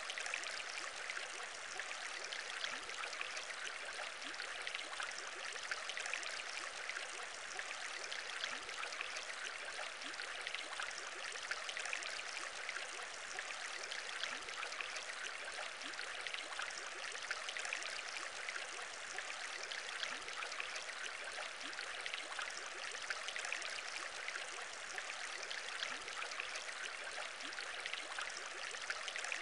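Aquarium bubble sounds: a steady, dense bubbling of many small bubbles.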